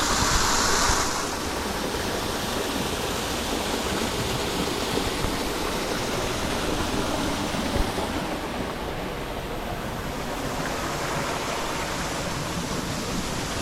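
Steady rushing of water from a garden waterfall, a little louder in the first second.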